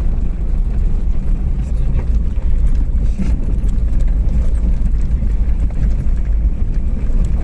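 Strong wind buffeting the microphone: a loud, steady, fluttering low rumble.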